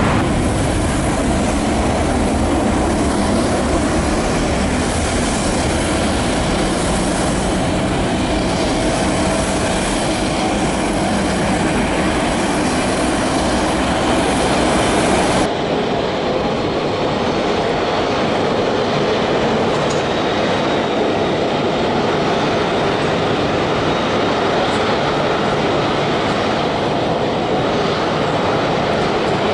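Steady jet engine roar from a taxiing Airbus A380 at low thrust. About halfway through, the sound shifts abruptly and the high hiss drops away.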